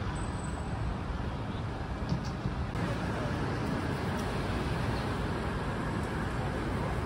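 Steady outdoor background noise, heaviest in the low range and even throughout, with faint voices mixed in.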